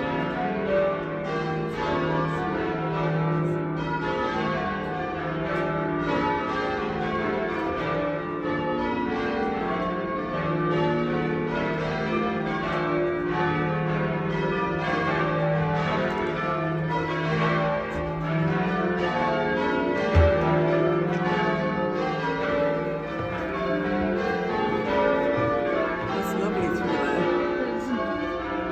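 Pershore Abbey's tower bells being change-rung: bells struck in turn in an unbroken, even rhythm, their tones overlapping. A single short low thump about twenty seconds in.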